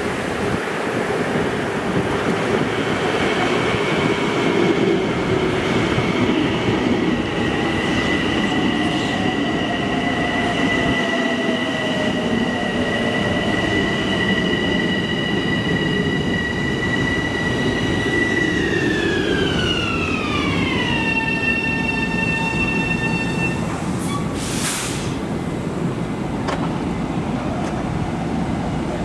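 Bombardier M7 electric multiple-unit train pulling into the platform and braking to a stop. The wheels rumble under a high, steady whine, which glides down in pitch over a few seconds about two-thirds of the way through, holds briefly and stops. A short hiss follows.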